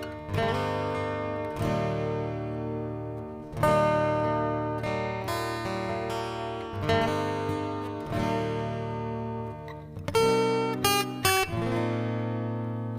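Background music of acoustic guitar: strummed chords roughly every second and a half to two seconds, with a short run of quicker plucked notes about ten seconds in.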